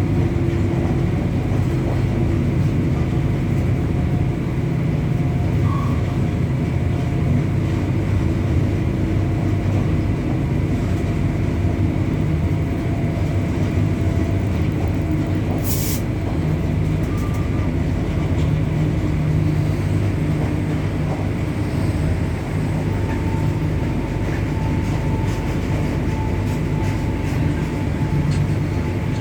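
WAG-9 electric locomotive running under way, heard on board: a steady heavy rumble with faint whining tones that come and go and shift in pitch. A single sharp click about halfway through.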